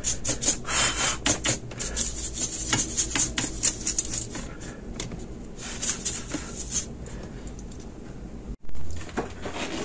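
Bristle paintbrush scrubbing dust out of a laptop's plastic bottom case, in quick scratchy strokes that die down about seven seconds in. A different short noise follows near the end.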